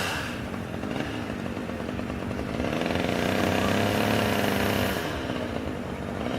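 Two-stroke chainsaw running, revving up about three seconds in and easing back about two seconds later.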